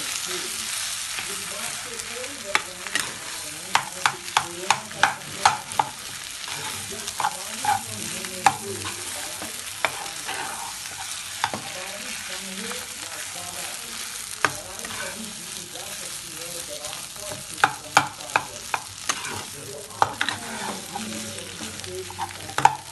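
Steel spoon stirring and scraping mashed-potato masala in a non-stick frying pan, over a steady frying sizzle. Sharp clicks of the spoon striking the pan come in clusters.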